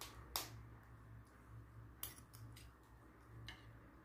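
Metal spoon and fork clicking lightly against a plate about four times, faint, over a low steady hum.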